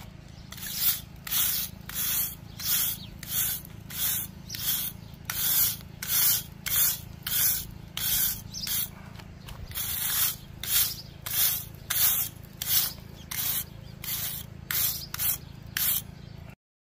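Stiff wooden-handled hand brush scrubbing moss off a rough pebbly rendered wall in rhythmic rasping strokes, about one and a half a second. The scrubbing cuts off abruptly shortly before the end.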